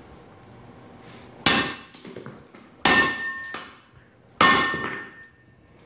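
Li'Jo utility shovel's blade chopping down onto a paver, three hard blows about a second and a half apart. Each strike lands with a sharp crack, followed by a short metallic ring.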